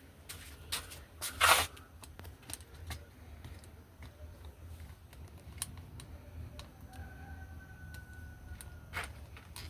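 Scattered small clicks and knocks of hands handling parts, with a louder rustling burst about a second and a half in and a faint thin tone for about two seconds near the end, over a low steady hum.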